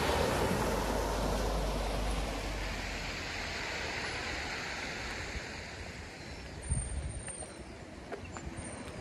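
Small waves washing on a shingle beach, with wind rumbling on the microphone, fading gradually; a few faint knocks near the end, the sharpest about two-thirds of the way through.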